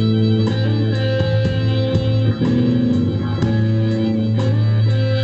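Blues band playing an instrumental passage between sung lines: guitar lines bending over a steady held bass note.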